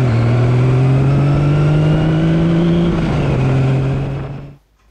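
Kawasaki Z1 air-cooled inline-four motorcycle engine running under way. Its pitch rises slowly, dips a little about three seconds in, and the sound fades out near the end.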